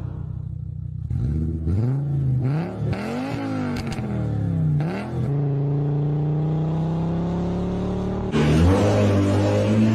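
Car engine revved in several quick blips, pitch jumping up and falling back each time, then held at a steady speed. About eight seconds in it gives way abruptly to a louder engine whose pitch climbs slowly as it accelerates.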